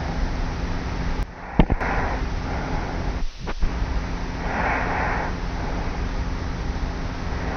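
A sleeping young woman breathing slowly and snoring lightly on her back, a soft swell of breath about every three seconds, recorded by a tape recorder on the pillow with steady hiss and hum. The recording drops out briefly with a click about a second and a half in, and dips again just past three seconds.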